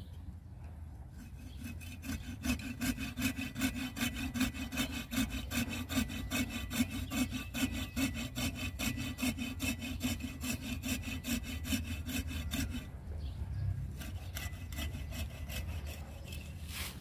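Hand pruning saw cutting through a branch of a Wrightia religiosa (mai chiếu thủy) tree, in rapid, even back-and-forth strokes. The sawing stops about 13 seconds in, and a few fainter strokes follow near the end.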